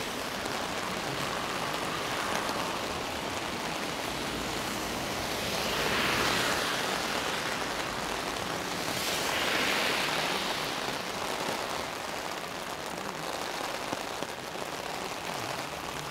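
Heavy rain falling on an umbrella overhead, a steady hiss that swells louder twice, at about six and ten seconds in.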